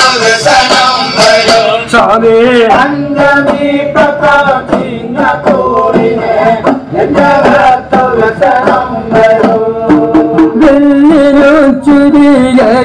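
Ayyappan pattu, a Malayalam devotional song to Ayyappa, sung with wavering, ornamented melody over steady drum strikes.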